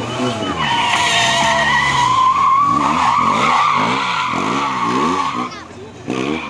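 BMW R 1200 GS boxer-twin engine revving up and down in quick swings while the rear tyre squeals in one long screech as the bike drifts and spins. The squeal cuts off about five and a half seconds in and the sound briefly drops.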